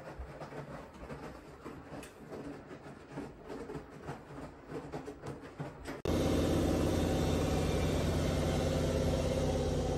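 Faint irregular taps and rustles, like footsteps and phone handling while walking across hardwood floors. About six seconds in, this gives way abruptly to a loud, steady mechanical hum with a low drone.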